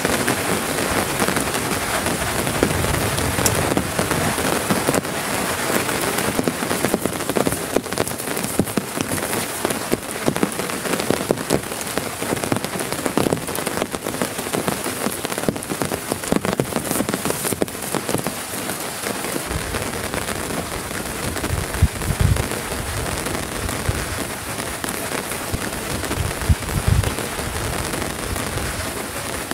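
Heavy rain pattering steadily on a tarp, dense with small drop impacts, with a few low rumbles in the second half.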